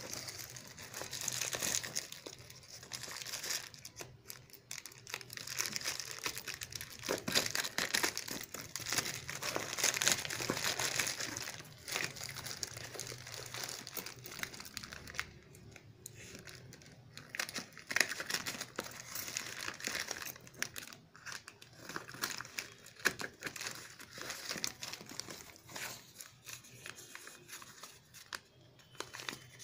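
Cardboard and plastic packaging being torn open and crinkled by hand: irregular rustling, tearing and crackling that comes and goes as the box, a plastic pouch and a paper carton are handled.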